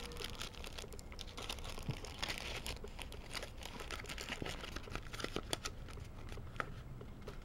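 Clear plastic baggie and crumpled plastic wrapping crinkling and rustling as they are handled, a dense run of small irregular crackles and clicks.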